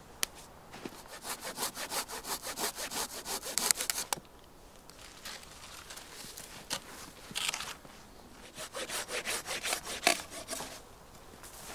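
Silky Gomboy folding saw with a 24 cm blade cutting through a log with quick back-and-forth strokes. It comes in three runs: a long one over the first four seconds, a short one in the middle, and another about two seconds long near the end.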